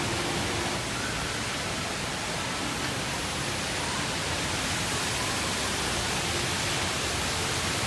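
The Rain Vortex indoor waterfall pouring into its pool: a steady, even rushing of falling water.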